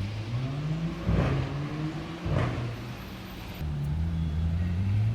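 A sports car's engine revving and accelerating, its pitch rising. Two brief loud bursts come about one and two and a half seconds in, and the engine rises in pitch again near the end.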